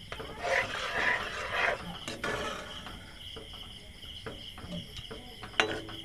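Perforated metal spatula stirring a thin, watery roselle-leaf gravy in a metal kadai: liquid swishing and sloshing for the first couple of seconds, then light scrapes and clinks of the spatula against the pan, with one sharp clack near the end. A steady high chirring runs underneath.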